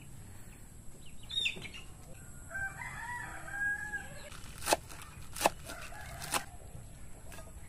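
A rooster crows once, a call of about a second and a half. Then come three sharp knife chops through pechay (bok choy) onto a wooden board, the loudest sounds here.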